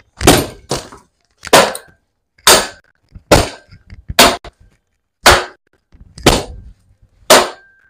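A wooden plank repeatedly whacking a bicycle's metal frame, about nine hard strikes at roughly one a second, a couple of them doubled, with a brief metallic ring after some hits.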